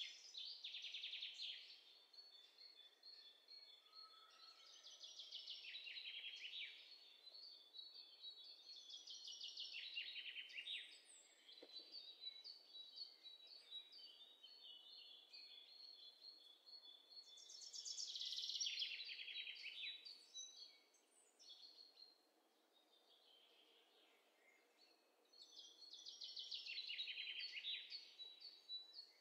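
Faint birdsong sound effect: bursts of rapid, high trilling every few seconds, with quieter chirping between them.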